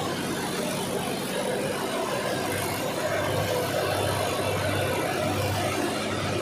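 Raisin-processing machine running steadily: raisins rattle over a vibrating perforated mesh sieve, over a low steady motor hum.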